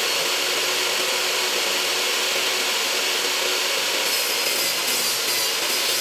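Power saw cutting wood, a loud steady cutting noise with a faint motor hum beneath it.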